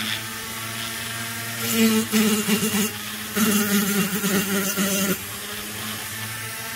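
Hand-held rotary tool whining steadily with a coarse grit sanding drum, twice biting into the transfer port walls of a chainsaw cylinder for a second or two, louder and rougher each time. It is smoothing out ridges in the port walls.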